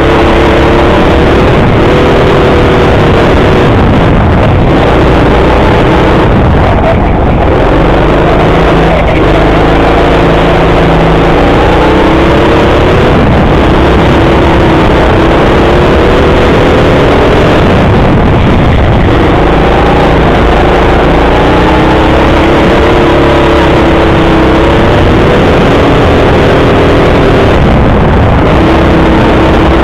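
Go-kart engine running hard, heard from the driver's seat. Its pitch climbs and drops again several times as the kart speeds up and slows for the corners, over a loud rushing noise.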